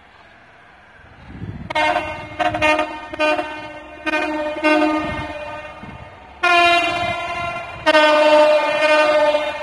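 British Rail Class 67 diesel locomotive 67012 sounding its two-tone horn in a long run of blasts that switch between a high and a low note, starting about a second and a half in. Short, quick blasts come first, then longer blasts from about six and a half seconds in.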